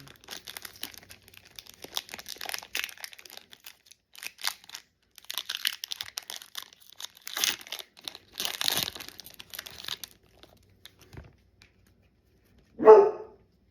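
Foil Pokémon booster-pack wrappers crinkling and cards being handled, in irregular rustles that stop about ten seconds in. Near the end comes a single short, loud dog bark.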